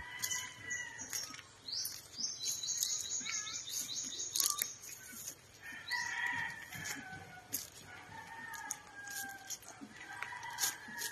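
Domestic chickens: roosters crowing several times in long held calls, with hens clucking. A fast high-pitched bird trill runs from about two seconds in.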